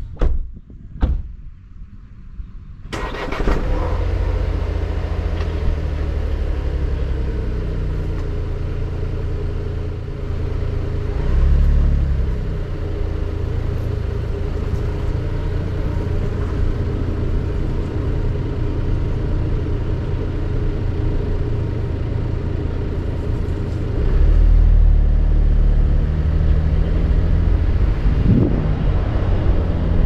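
Two sharp knocks, then about three seconds in a car engine starts and runs with a low steady hum, heard close through the bonnet. It gets louder at about 11 s and again at about 24 s as the car moves off.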